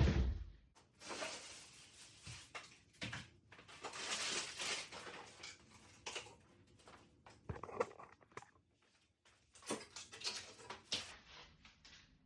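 Food packages and containers being handled and set down while a fridge is emptied: a series of irregular knocks, clunks and rustles of plastic packaging, the loudest a knock at the very start.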